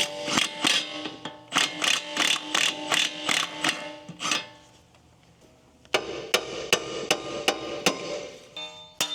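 Repeated hammer blows on a rusted front brake rotor of a 2001 Honda Prelude, driving it off the hub; the metal rings with each strike, about three a second. The blows stop about four and a half seconds in, and after a short pause a second run of evenly spaced strikes begins.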